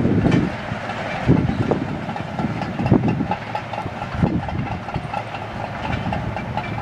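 Caterpillar D8T bulldozer's diesel engine running steadily, with irregular clanking from its steel tracks.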